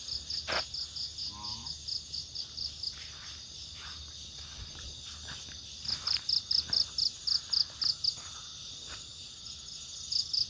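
Insects chirping in three bouts of quick, evenly spaced high pulses, about six a second, over a steady high insect drone. A few faint clicks fall between the bouts.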